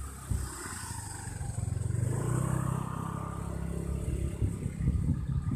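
A vehicle engine running steadily, louder from about two seconds in.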